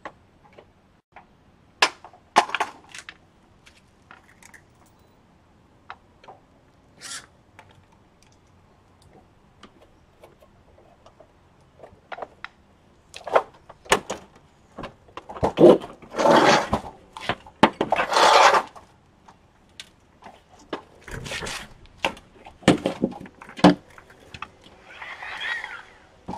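Irregular clicks, clunks and knocks of dishwasher parts being pried and pulled apart by hand, with a run of longer, louder scraping noises about halfway through.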